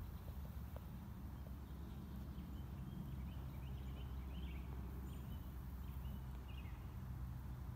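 Outdoor ambience: a steady low rumble with faint small-bird chirps scattered through the middle of the stretch.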